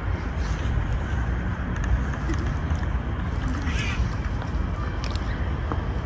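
Low, uneven outdoor rumble with a steady hiss, and a faint short high chirp about four seconds in.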